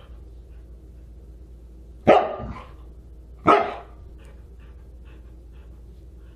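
Siberian husky barking twice, two short sharp barks about a second and a half apart.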